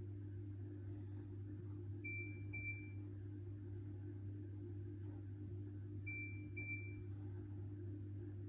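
Hoover H-Wash 600 washing machine's control panel beeping: two short high beeps about half a second apart, heard twice about four seconds apart, as the programs and options are stepped through. A steady low hum lies under them.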